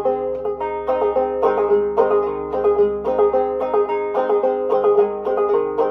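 An 1891 Fairbanks Electric open-back banjo in gDGBD tuning, up-picked in a steady repeating pattern of single notes, with the open strings ringing on under them.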